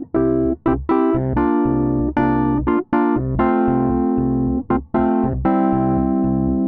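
Rhodes Wurli plugin, a virtual Wurlitzer 200A electric piano, playing chords over low bass notes. The chords are short and clipped, with brief gaps between them.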